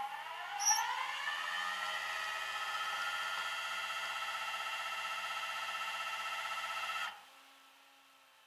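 A motor on the tow truck's loading gear spins up with a rising whine, holds a steady whine for about seven seconds, then cuts off suddenly.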